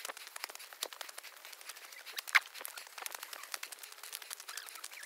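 Footsteps crunching on a trail of dry fallen leaves and gravel, a dense run of irregular crackles with a louder sharp click about two and a half seconds in.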